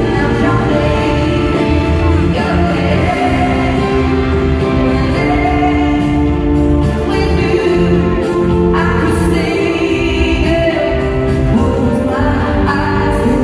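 Live pop ballad in an arena, heard through a phone's microphone: a female lead singer over a full band, with the audience's voices joining in.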